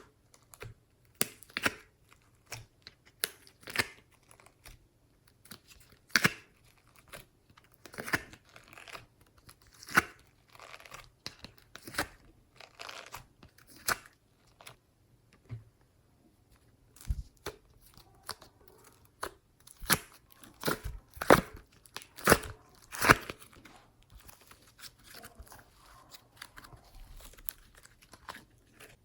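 Slime being kneaded and stretched by hand, giving irregular sticky pops and crackles, with a denser run of louder pops about two-thirds of the way through.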